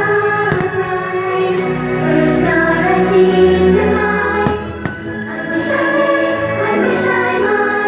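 Fireworks show music: a choir singing over an orchestra, with a few firework bursts cracking through it.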